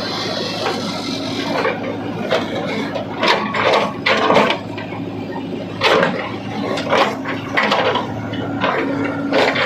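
Heavy diesel machinery engine running steadily, with repeated irregular knocks and scraping clatter over it, typical of a digging bucket working earth and stones.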